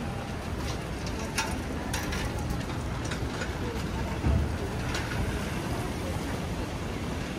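Heavy rain falling steadily, with scattered sharper drops striking an umbrella, over a low rumble of city traffic. A single low thump stands out about four seconds in.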